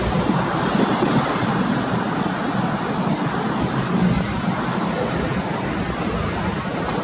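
MiG-29 jet engines: a steady, loud jet roar, with a faint high whistle over it in the first second or so.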